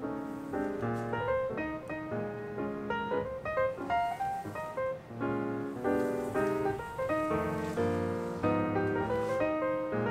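Background instrumental music led by piano, with notes moving along several to the second.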